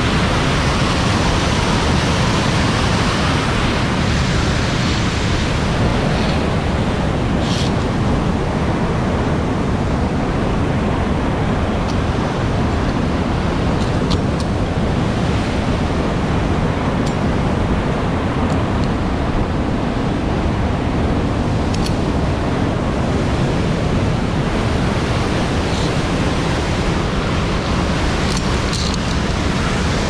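Steady roar of a tall alpine waterfall close by, with wind buffeting the microphone and a few faint clicks.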